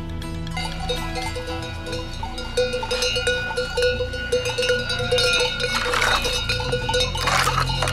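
Livestock bells on a flock of sheep and goats, clinking and ringing over and over as the animals move. Two brief rushes of noise come near the end.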